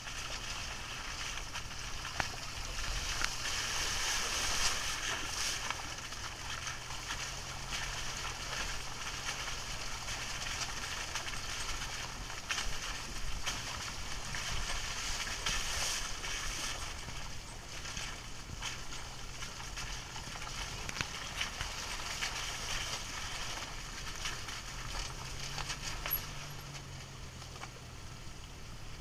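Jeep Wrangler crawling at low speed on a rough, muddy trail: a steady low engine drone under the crunching and crackling of tyres over stones, leaves and mud. The engine note rises briefly near the end.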